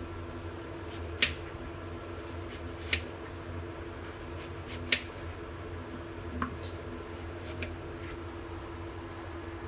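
Kitchen knife slicing through raw peeled potatoes and striking the cutting board: three sharp taps about two seconds apart, then a couple of fainter ones, over a steady low hum.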